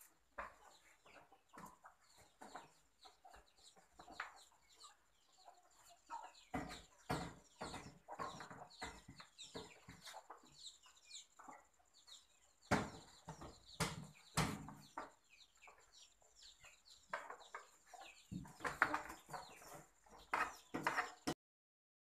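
Chickens clucking, mixed with rustling and a few sharp knocks. The sound cuts off abruptly shortly before the end.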